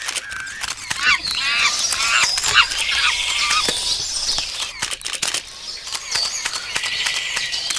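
Sound effects for an animated logo intro: a busy run of quick pops and clicks mixed with high, squeaky chirping glides.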